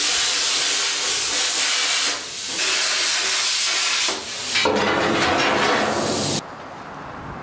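Cutting torch slicing through steel plate: a loud, steady hiss of the cutting jet, dipping briefly twice and cutting off suddenly about six seconds in as the cut ends.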